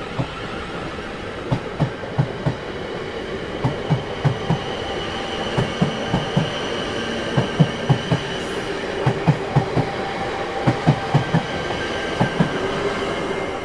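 Railroad train cars rolling past with a rhythmic clickety-clack of wheels over rail joints, in sets of about four knocks every two seconds, over a steady rumble with a constant tone.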